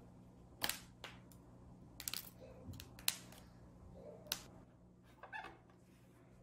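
Clear plastic chocolate mold clicking and crackling as it is flexed and pried apart with a metal scraper to free a chocolate rabbit, about five sharp clicks spread across the few seconds.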